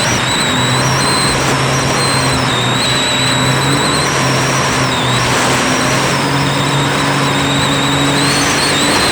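Loud, steady rush of whitewater rapids. A thin, wavering high-pitched whine runs over it.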